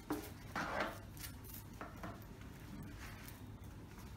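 Hard plastic parts of an OKM EXP 6000 metal detector being handled and fitted together: a few short clicks and knocks, the loudest just under a second in.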